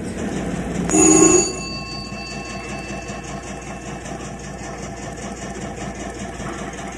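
A bell rings once, sharply, about a second in, its tones dying away over the next couple of seconds, over a steady machine whirr with a fast, even ticking.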